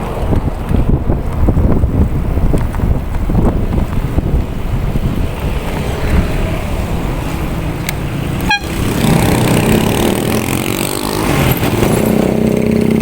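Wind buffeting the microphone on a moving bicycle, mixed with passing motor traffic. A sharp click comes about 8.5 seconds in, and a steadier engine hum grows louder near the end.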